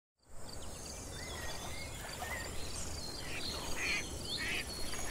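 Outdoor nature ambience of birds calling and singing over steady, pulsing insect chirping. It fades in just after the start.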